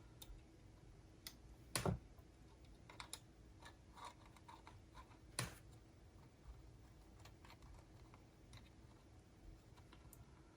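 Faint, scattered small clicks and taps of hand work on a Sony MZ-RH1 MiniDisc transport while the sled motor is being removed, the two sharpest about 2 s and 5.5 s in.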